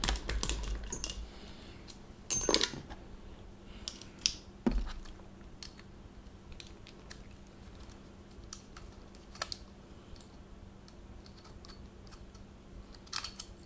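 Scattered clicks and knocks of a metal airsoft gas-blowback rifle bolt carrier group and a screwdriver being picked up and handled, with one sharper knock and a brief metallic ring about two and a half seconds in. Near the end there is a quick run of small clicks as a screwdriver is set into the gas key screw.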